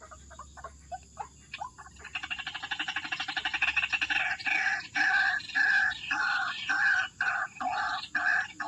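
White-breasted waterhens (ruak-ruak) calling: scattered short notes, then about two seconds in a fast pulsing chatter that builds, turning into loud, repeated croaking phrases with short gaps between them.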